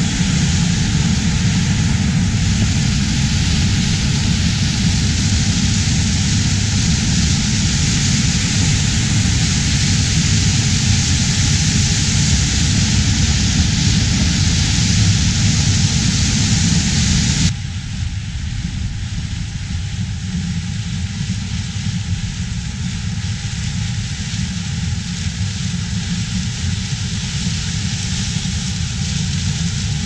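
Steady mechanical running noise that drops abruptly in level and loses its highest range about 17 seconds in.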